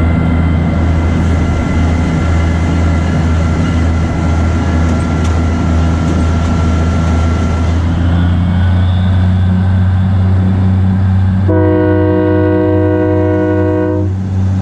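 The diesel engine of a 1943 GE 80-ton diesel-electric switcher running steadily while the locomotive travels. Its note shifts slightly about eight seconds in. Near the end the locomotive's air horn sounds one blast of about two and a half seconds.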